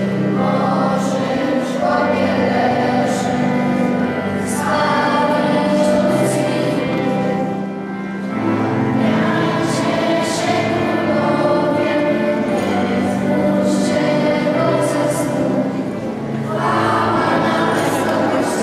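Children's choir singing a Polish Christmas carol with instrumental accompaniment, in phrases with two short breaths between them.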